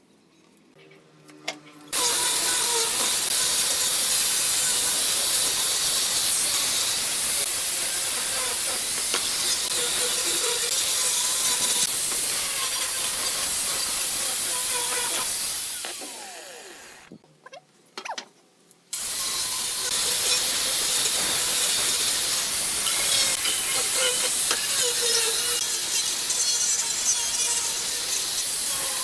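A power tool working wood: a loud, steady hiss-like noise that starts abruptly about two seconds in, dies away around sixteen seconds, and starts again abruptly about nineteen seconds in.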